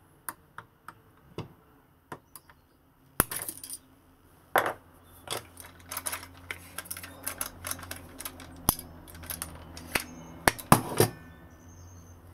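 Small metal clicks of a screwdriver prying a retaining clip off a Makita cordless circular saw, then from about three seconds in a busy run of clinks and rattles as the saw is turned over and shaken to find the clip. A low steady hum sits underneath.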